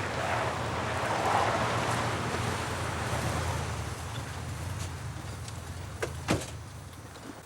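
A motor vehicle engine running steadily under a noisy hum that swells and fades, with two sharp knocks about six seconds in.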